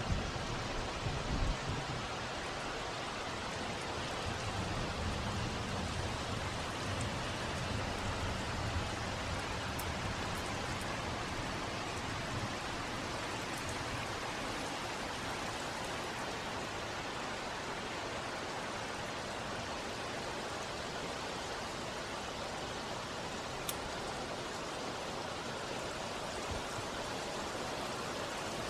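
Heavy rain falling steadily in a thunderstorm, with the low tail of a thunder roll dying away over the first several seconds.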